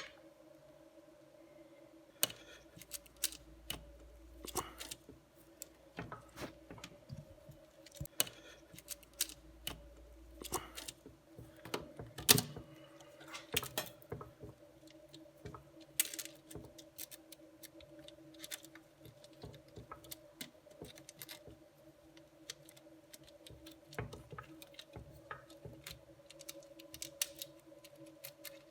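Tools and small metal parts being handled: scattered light clicks and clinks, with one sharper knock about twelve seconds in, over a faint steady hum.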